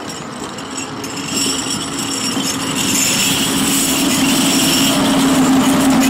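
Tigercat 632E grapple skidder's diesel engine running as the machine drives up close, steady in pitch and growing louder toward the end.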